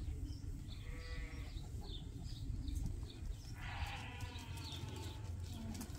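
Young rams bleating as the flock moves: a short bleat about a second in, a few small calls, then a longer, louder bleat past the middle, over a low steady rumble.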